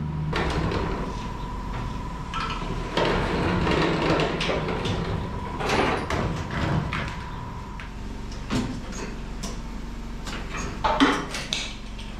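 Scattered knocks, clanks and rustling of hand work on a stripped-down pickup: metal parts and wiring being handled and moved, with a louder cluster of knocks about eleven seconds in.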